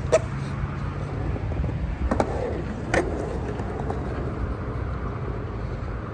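Skateboard wheels rolling on a concrete bowl with a steady low rumble, broken by a few sharp knocks from the board, one right at the start and two about two and three seconds in.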